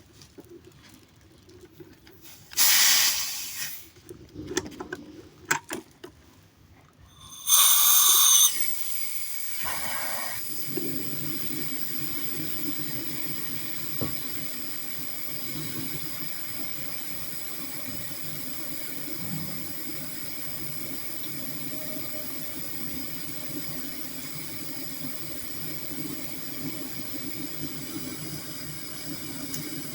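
Pressurised gas hissing through a hose into a refrigerator's body refrigerant lines for a leak test. Two short, loud blasts come about three and eight seconds in, then a steady hiss with a low hum under it runs from about ten seconds on.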